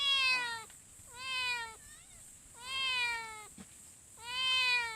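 A cat meowing four times, each meow about half a second long and falling in pitch, repeated every second and a half or so.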